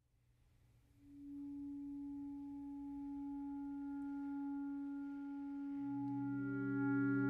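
Reed quintet opening a piece with a soft, long-held note that enters about a second in. A lower held note joins near six seconds in, and the chord slowly grows louder.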